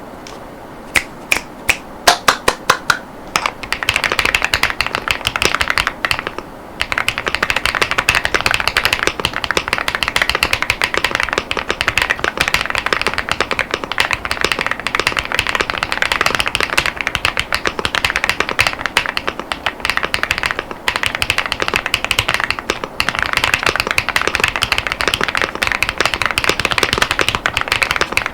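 AULA F99 Pro mechanical keyboard with Leobog Star Vector linear switches and PBT Cherry-profile keycaps being typed on: a fast, steady clatter of keystrokes. It opens with a handful of separate, louder key presses before continuous typing sets in, broken by short pauses about six and twenty seconds in.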